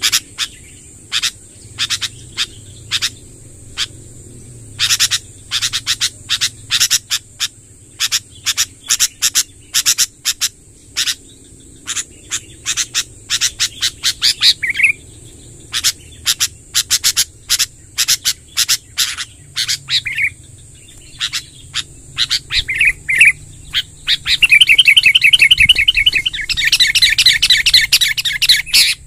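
Sooty-headed bulbul calling: a long run of short, sharp chip notes in quick succession, with a few brief warbled phrases, then a rapid rolling trill from about 24 seconds in that lasts several seconds.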